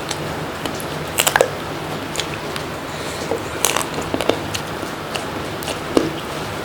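Close-miked mukbang eating: a person chewing and biting food with wet, sticky mouth sounds and scattered sharp clicks and crunches, in small bunches, over a steady low hum.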